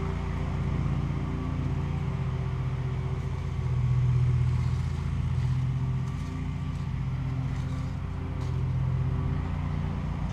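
An engine drones steadily, swelling louder about four seconds in and again near the end.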